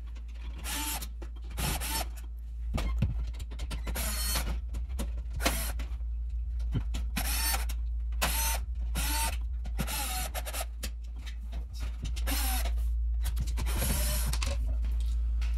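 Milwaukee cordless drill/driver running in many short bursts on screws in the oven's sheet-metal panel, each burst a brief motor whine.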